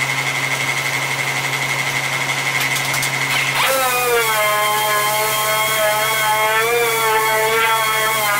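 Dual-action (DA) sander running while sanding a car hood patched with body filler. A steady high whine gives way about a third of the way in to a lower whine that wavers slightly as the sander is worked over the panel.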